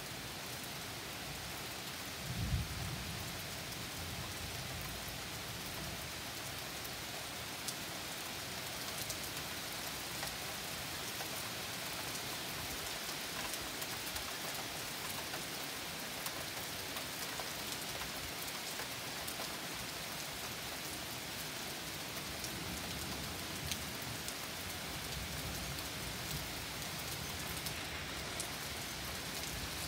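Steady rain falling during a thunderstorm, with a short low rumble of thunder about two and a half seconds in.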